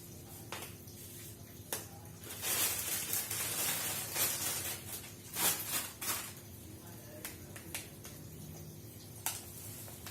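Rustling of food packaging as vegetables are packed away, in two longer stretches in the middle, with a few light clicks before and after.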